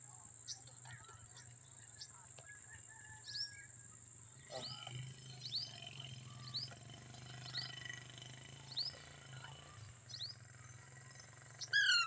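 Ringneck parakeets giving short, high, downward-sliding chirps about once a second, with a louder burst of calls near the end, over a steady high trill of crickets.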